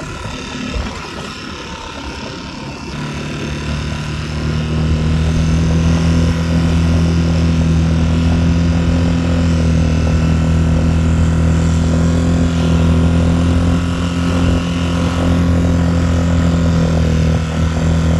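Tohatsu 3.5 hp outboard motor running steadily under way, pushing a small inflatable boat. It gets louder about three seconds in, then holds an even pitch.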